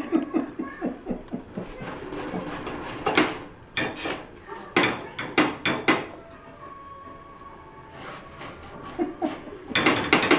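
Knife cutting up a watermelon on a cutting board: a run of separate knocks as the blade goes through the fruit and hits the board, a short lull, then more knocks near the end.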